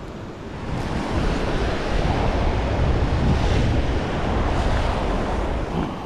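Ocean surf washing and foaming against the rocks below, with wind on the microphone. The wash swells about a second in and eases near the end.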